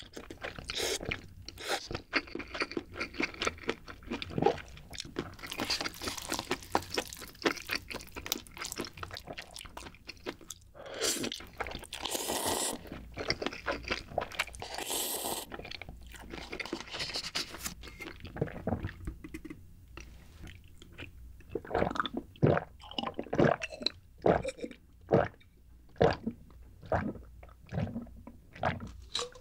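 Close-miked eating sounds: instant ramen noodles slurped and chewed, with longer slurps about 11 and 15 seconds in. In the last part the sounds come separately, one at a time, as milk is swallowed in gulps from a small bottle.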